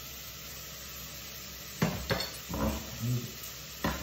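Broccoli with garlic and onion sizzling steadily as it sautés in a pot on a gas stove. A few sharp knocks of utensils against the pot come in the second half, the loudest just before the end as the pot's glass lid is handled.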